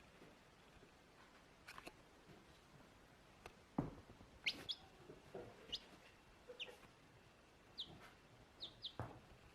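Baby chick peeping: a series of short, high, falling cheeps, scattered and coming in pairs in the second half. A soft thump just before the cheeps begin.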